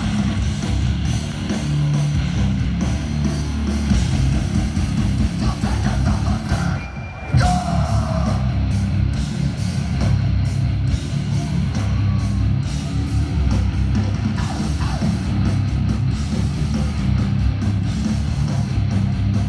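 A hardcore band playing live and loud: heavily distorted guitars and pounding drums. About seven seconds in the band briefly drops out, then crashes back in.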